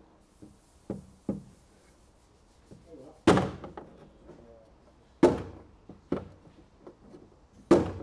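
Rubber hammer striking the underside of a Ford Orion's steel boot lid to knock a creased dent back up, hitting along the ridge of the dent. Three loud blows about two seconds apart, with lighter taps between them.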